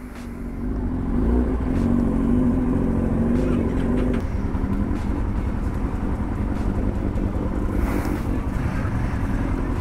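Vehicle engines running steadily, with a wavering hum for the first few seconds.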